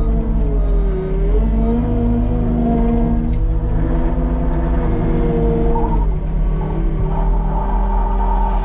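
Diesel engine of earth-moving equipment running under load, its pitch rising and falling as the machine works.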